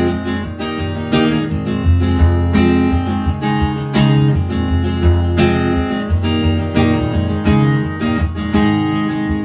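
Solo acoustic guitar strummed in a steady rhythm, the instrumental intro of a country song before the singing comes in.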